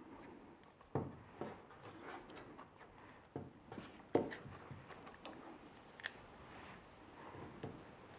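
Black electrical tape being pulled off the roll and wrapped around a cable junction, with the crinkle and knock of corrugated plastic split conduit being handled. Faint, irregular clicks and knocks, the loudest about four seconds in.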